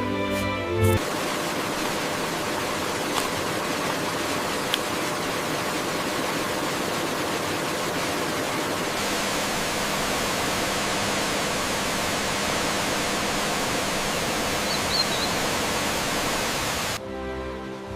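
Waterfall: a steady rush of falling water, growing a little brighter and hissier about halfway through. Gentle music plays briefly at the start and comes back near the end.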